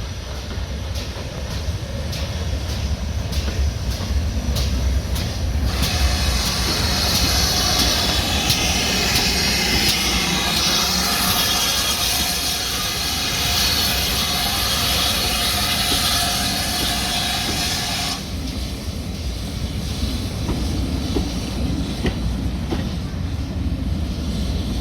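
Steam train running with a low rumble and regular clicks of wheels over rail joints. About six seconds in, a loud hiss of steam starts, lasts about twelve seconds and cuts off suddenly.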